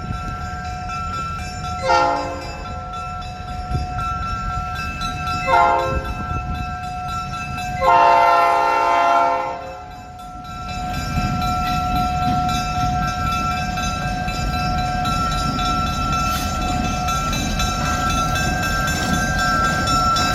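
A freight train's locomotive horn sounds a chord in blasts: two short ones, then a longer one lasting about two seconds. A steady low rumble follows from the locomotives and train rolling by.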